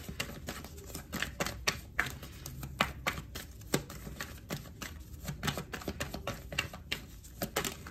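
A deck of tarot cards being shuffled by hand: a run of irregular clicks as the cards strike and slide against each other.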